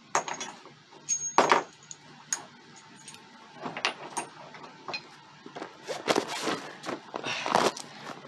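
Steel tow bar bracket parts and hardware being handled: irregular metal clanks and rattles, with a couple of longer scrapes near the end.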